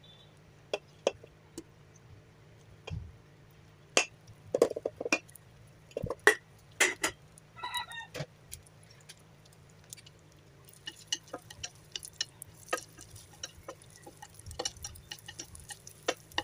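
Utensils knocking, tapping and scraping in a frying pan as cooked rice is put in and stirred, in irregular sharp clicks that are loudest a few seconds in. A chicken clucks briefly in the background about halfway through, and a faint high hiss joins in near the end.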